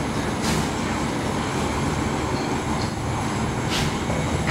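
Steady rumbling background noise, with two brief scratches of a marker writing on a whiteboard, about half a second in and near the end.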